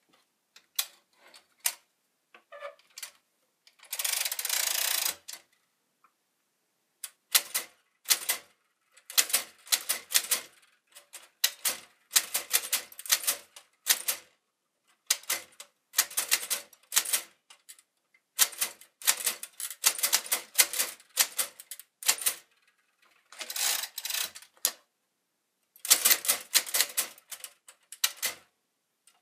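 Marxwriter toy typewriter being typed on: a few scattered clicks, a rasp of about a second about four seconds in, then quick runs of keystrokes in bursts with short pauses between them.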